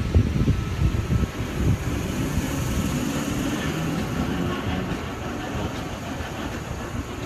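Double-deck V-set electric intercity train pulling away from the platform, a steady low rumble of wheels and motors with a run of low knocks in the first couple of seconds.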